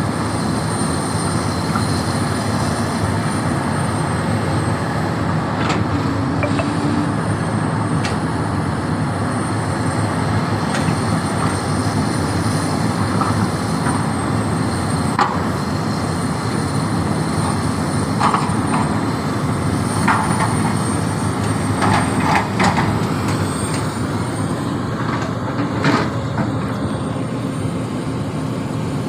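Hydraulic excavator's diesel engine running steadily under digging load, with a few short knocks and scrapes from the working gear now and then.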